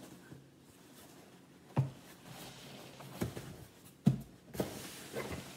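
A cardboard shipping box handled and set down on a table: a few sharp knocks, the loudest about four seconds in, with rustling and scraping of cardboard between them.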